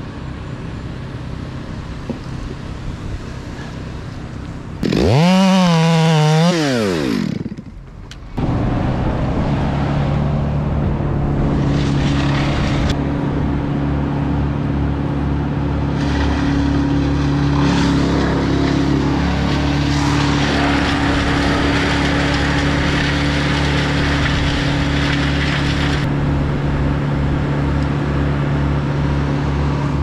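A chainsaw revs up loudly, its pitch rising and then falling, and cuts off about seven seconds in. Then a wood chipper's engine runs at a steady speed, with bursts of grinding as fir branches are fed into it.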